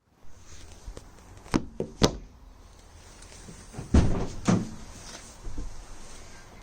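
A few clunks and thuds, the loudest a pair of heavy thuds about four seconds in, typical of a car door being opened and shut before starting.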